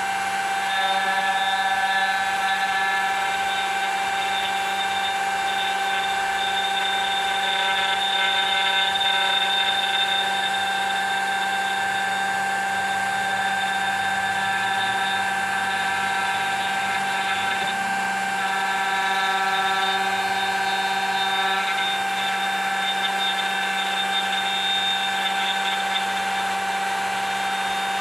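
Router motor in a hand-guided copy carver running steadily at high speed while its bit cuts a groove along the outline of a part: a steady high-pitched whine whose tone shifts slightly now and then.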